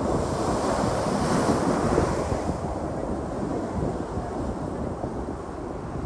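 Ocean waves breaking against the outer edge of a rock platform: a surge of surf that swells in the first couple of seconds, then eases into a wash of white water. Wind buffets the microphone throughout.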